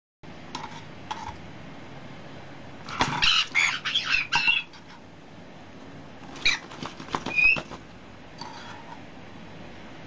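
Young caique parrots giving begging squawks and chirps while being spoon-fed, in two quick bursts about three seconds in and again about six and a half seconds in, with a few faint clicks before them.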